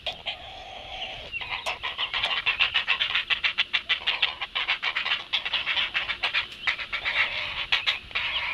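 Great blue heron nestlings begging at the nest: a rapid run of short, harsh, repeated calls, with a brief lull about a second in.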